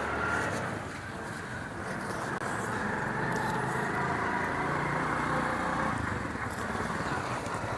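An engine running steadily, growing a little louder over the first couple of seconds.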